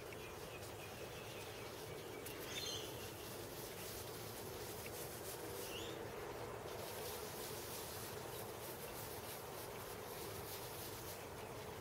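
Soft rubbing of a cloth spreading engineer's blue over a surface plate, faint over a steady low hum and hiss. Two brief, faint high chirps come about two and a half and six seconds in.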